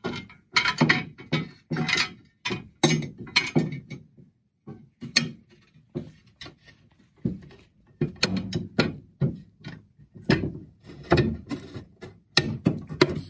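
Aluminum transom adapter plate and threaded steering-cable adjusters being handled and fitted onto a jet boat's transom: irregular metal clanks, knocks and rattles.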